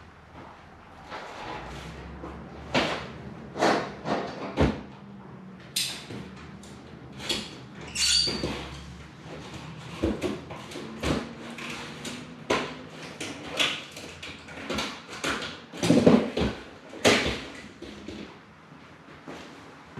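Hand tools being fetched and handled: irregular metal clanks and knocks, with a brief ringing clink about 8 seconds in and two louder knocks near the end.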